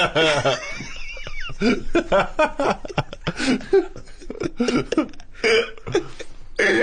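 Men laughing in short, repeated bursts.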